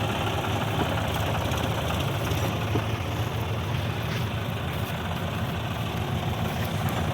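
Heavy diesel machinery engine running steadily with a low, even hum.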